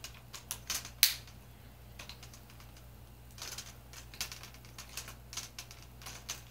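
Plastic screen bezel of an HP 15-1271wm laptop being handled and pressed onto the display: a scattered run of sharp plastic clicks and taps, the loudest about a second in, as its clips snap into place.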